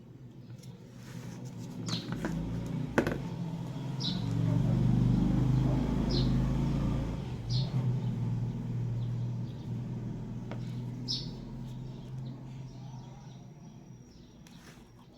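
Small birds chirping, short single chirps every couple of seconds. A low hum swells over a few seconds and slowly fades away. There is one sharp click about three seconds in.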